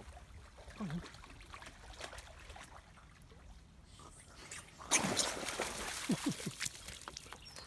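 A dog splashing into shallow river water, starting suddenly about five seconds in and going on in a run of splashes after a quieter stretch.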